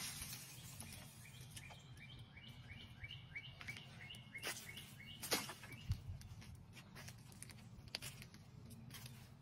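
A bird singing a run of short, repeated chirped notes, about three a second for a few seconds, over a steady low background hum. A few sharp clicks and a soft thump come near the middle.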